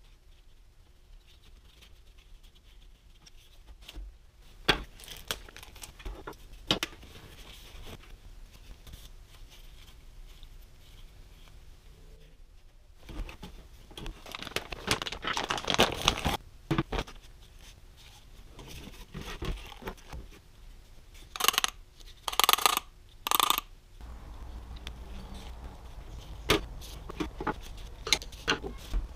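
Car parts handled on a workbench: scattered clicks, knocks and scrapes of rubber intake ducts and metal hose clamps against an aluminium tray, with plastic packaging crinkling in a few short bursts.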